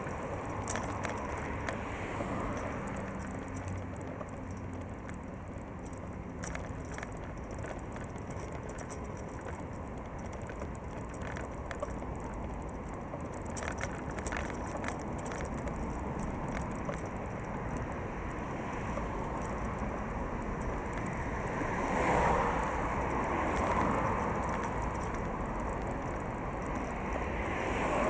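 Steady road noise from passing city traffic, with louder swells as cars go by about two thirds of the way through and again near the end. Scattered small clicks and rattles come from the bicycle carrying the camera as it rolls over the pavement.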